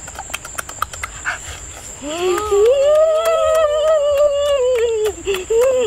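A boy eating with loud mouth-smacking clicks, then, about two seconds in, a long hummed 'mmm' of relish that rises in pitch, holds for about three seconds and falls away, followed by a shorter one near the end.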